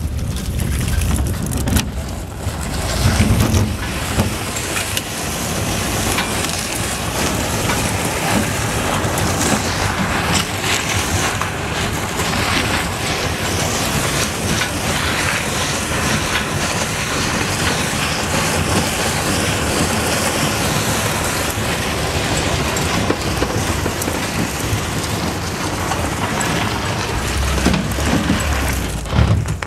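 A small boat's hull scraping and crunching over a gravel road as it is dragged on a chain behind a truck, with a low rumble underneath.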